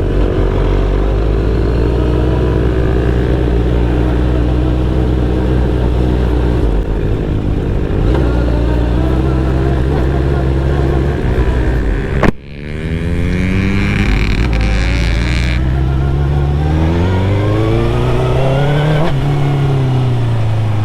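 Suzuki GSX-R1000's inline-four engine running steadily at low revs, then after a sudden break about twelve seconds in, rising in pitch as the bike accelerates, rising again and dropping back near the end.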